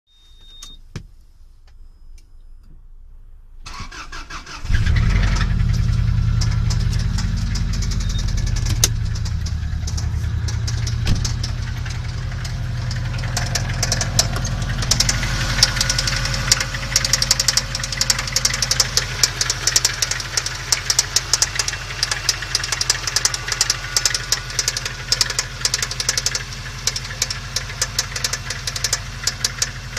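Subaru EJ205 flat-four engine started: a brief crank about four seconds in, then it catches and runs steadily. From about halfway a fast, even knocking rides on top of the running engine: the engine knock this engine has.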